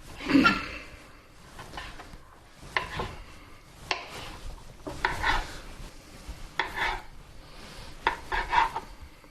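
Kitchen knife slicing through cooked chicken breast on a cutting board: a series of short cutting strokes and scrapes, roughly one every second, some in quick pairs.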